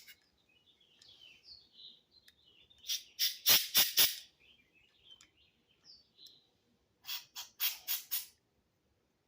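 Two clusters of short hissing blasts, about five in each, a few seconds apart, as air or cleaner is shot through the small passages of a Lifan 152F-3 carburetor to check they are clear. Birds chirp faintly between them.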